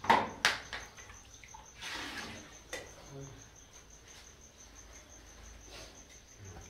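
Metal skimmer and ladle knocking and scraping against a large steel cooking pot of paye curry. There are two sharp clanks at the start, then a few lighter knocks and a short scrape.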